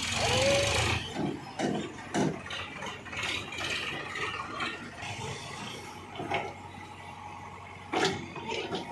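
Heavy machinery working on a dirt site: a tractor and a crawler excavator running. It is loud and steady for about the first second, then quieter, with irregular metallic clanks and knocks, a sharp one about eight seconds in.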